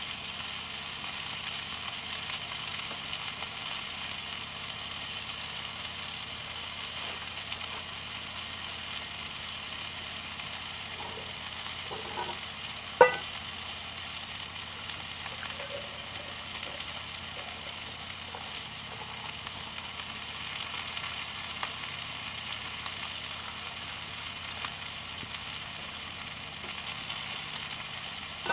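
Steady sizzling of food frying in a cast iron skillet over a campfire. About 13 seconds in, a single sharp ringing clink of the glass French press against the metal travel mug as coffee is poured.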